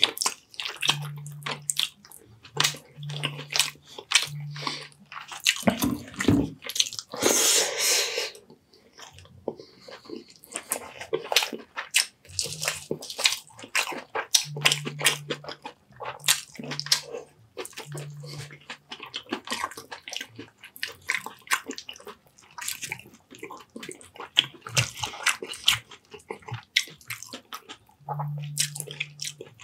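Close-miked eating: wet chewing and lip-smacking of baked sea bass and rice, many quick irregular smacks and clicks, with short low hums now and then and a longer, louder rush about seven seconds in.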